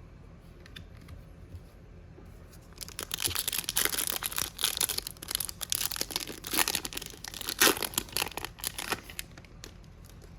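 A hockey trading card pack's wrapper being torn open and crinkled in the hands: a dense run of crackling and tearing that starts about three seconds in and lasts about six seconds.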